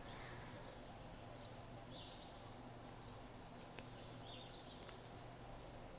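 Near silence: faint room tone with a steady low hum and a few faint, high chirps.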